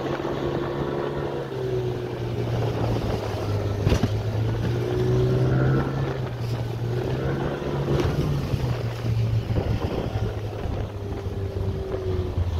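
Outboard motor of an inflatable boat running under way, its pitch rising and dipping slightly, over wind and water noise. A single sharp knock about four seconds in.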